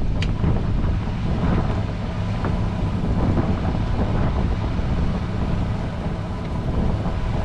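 Boat engine running steadily with a low hum, and wind buffeting the microphone.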